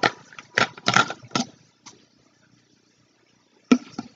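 Hard clear plastic egg-shaped toy capsule clicking and crackling as it is handled and its lid worked open: a run of sharp clicks in the first second and a half, a quiet pause, then another sharp click near the end.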